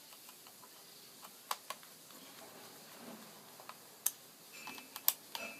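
Small screws and a small Phillips screwdriver being handled on the plastic underside of a netbook: scattered light clicks and ticks, a few sharper ones about one and a half, four and five seconds in.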